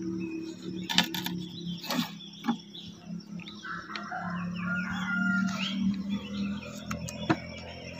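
Several sharp wooden knocks as a wooden beehive box is handled, over a steady low hum, with birds chirping in the background.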